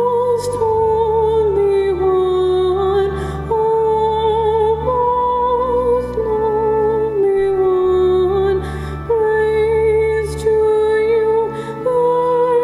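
Slow sacred music: a woman singing a held, stepwise melody with vibrato over sustained keyboard chords.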